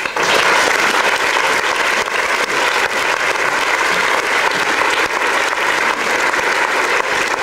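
An audience clapping in a hall. The applause breaks out suddenly and then holds steady.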